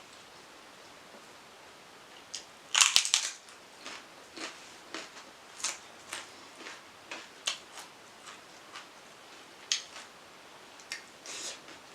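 Close-up eating sounds: a loud crunchy bite about three seconds in, followed by scattered short wet clicks of chewing.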